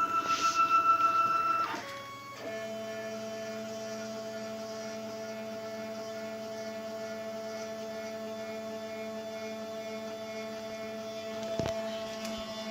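Stepper motors of a 4-axis CNC hot-wire foam cutter running with a steady multi-tone whine as the machine moves. The tone changes about two seconds in, and there is a brief knock near the end.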